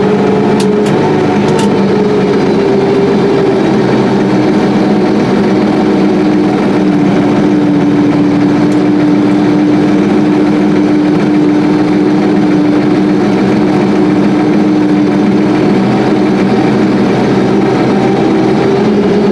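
Combine harvester running steadily while harvesting soybeans: a loud machine drone with a strong hum that dips slightly in pitch and rises again near the end. A few faint clicks about a second in.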